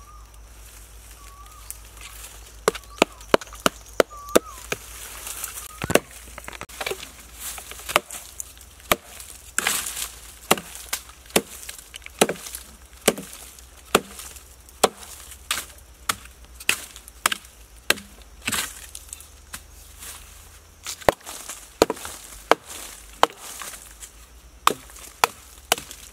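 A hand tool chopping into a soft, rotting log: sharp wooden chops come about one to two a second, with a brief pause late on.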